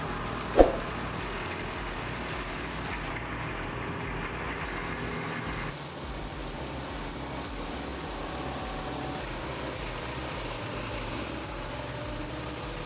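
Wood chipper's engine running steadily, with one sharp clang about half a second in.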